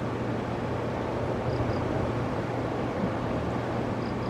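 Steady low hum over a rushing background noise, with two faint pairs of short high chirps, about a second and a half in and near the end.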